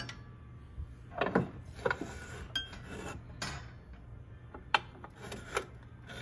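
Old metal hand tools and a cast-iron pulley block being handled on a wooden shelf, with a string of short clicks, knocks and rubbing.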